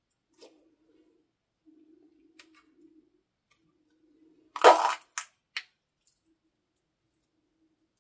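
Scissors cutting into a soft squishy stress toy: one loud crunchy snip about four and a half seconds in, followed by two shorter snips. Before that there is a faint squishing as the toy is handled.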